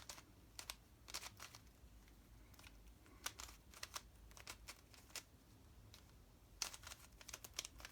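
Faint scattered clicks of a plastic twisty puzzle cube being turned by hand, with a quicker run of clicks near the end.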